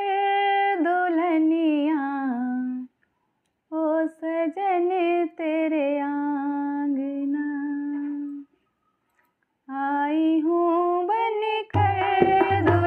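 A woman singing the opening of a Hindi folk dadra alone and unaccompanied, in long held, gliding phrases with two short pauses. Near the end a dholak drum comes in with strong low strokes, and a second woman's voice joins.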